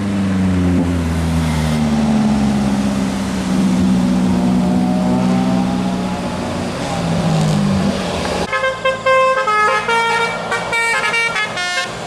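Bus engines running in passing traffic, a low engine note that slowly falls in pitch. About eight and a half seconds in it gives way to a bus telolet horn, a multi-tone musical horn playing a quick run of stepped notes over and over.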